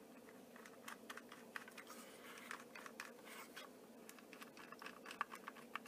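Faint, scattered small clicks and scratching of a magnetic jeweler's screwdriver turning tiny screws into a plastic model diesel locomotive.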